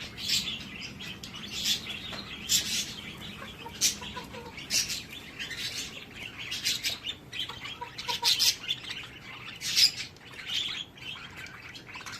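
Birds chirping: many short, high-pitched calls that come irregularly, about one or two a second.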